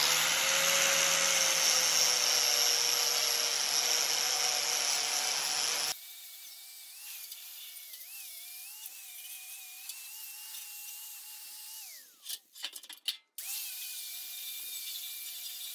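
Electric angle grinder working on a rusty steel bumper reinforcement bar, loud for about six seconds. Then a quieter steady whine with a wavering pitch, which winds down about twelve seconds in and starts up again a second later.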